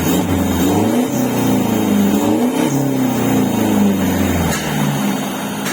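Toyota Hilux Revo 2.4 turbo-diesel engine revving through an aftermarket exhaust that exits ahead of the rear axle. The pitch climbs and drops back a few times.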